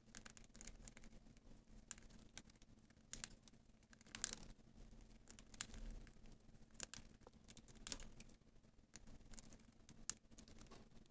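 Budgerigars cracking and husking seeds with their beaks: faint, irregular little clicks and crunches, a few every second.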